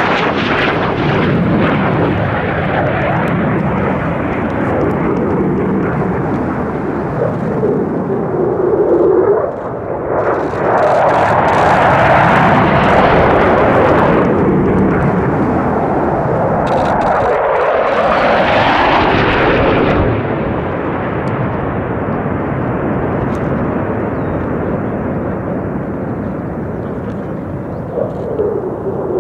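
Jet engine noise from low-flying fighter jets in a valley, with a Dassault Rafale in the opening moments. It runs continuously, swelling loudest about ten seconds in and again just before twenty seconds, then fading to a lower rumble.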